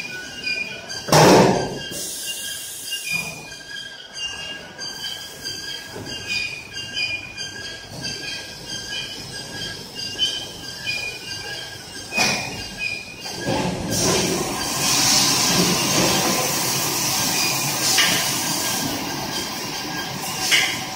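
5-gallon (19 L) water bottle filling line running: steady machine clatter with high tones coming and going. A loud clank about a second in and another near the middle, then a steady hiss through the second half.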